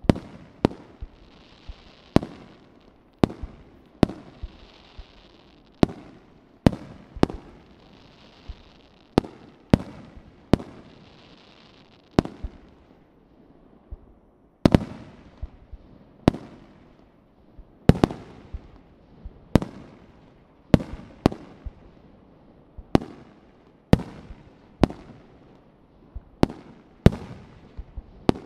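Aerial firework shells bursting one after another, about one bang a second, each sharp boom trailing off in an echo. A faint hiss fills some of the gaps in the first half.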